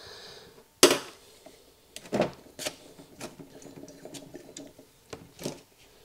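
Handling clatter: a sharp click about a second in, then scattered lighter clicks and taps, from a metal pick working the valve in an AC compressor's aluminium port and a glass measuring jug being set down and picked up.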